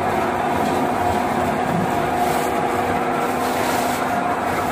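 Large engine lathe running, turning a heavy rubber-coated roller: a steady mechanical drone with a constant whine.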